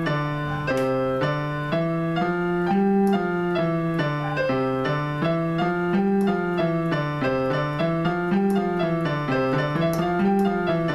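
Electronic keyboard playing a two-hand five-finger exercise, both hands striking together so two notes sound at once. The notes move up and back in a steady run of about three a second, each held until the next one sounds.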